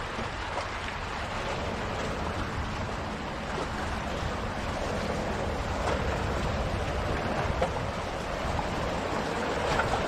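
Sea waves washing and splashing against the boulders of a rocky shore, a steady rushing wash that swells a little as each wave breaks.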